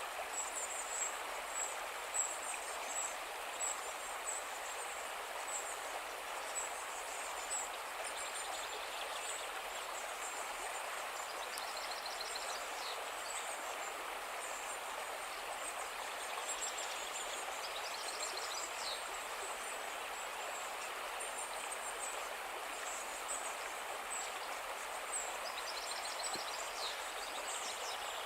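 Calm river flowing steadily with an even rushing wash, and small high chirps repeating over it, with a few short trills now and then.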